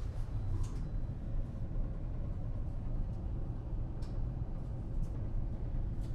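Steady low rumble of the Jumbo Ferry Aoi's engines and hull heard inside the ship, with a few faint clicks.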